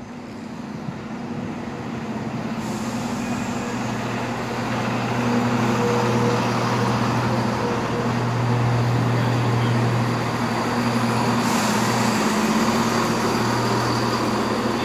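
Class 170 Turbostar diesel multiple unit running in along the platform, its underfloor diesel engines giving a steady low hum. The sound grows louder over the first few seconds as the train draws alongside, then holds.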